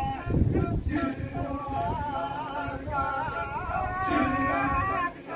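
Kecak vocal music: a singer's melodic line, wavering in pitch, carries over the dense sound of the massed chorus. There is a brief low rumble about half a second in.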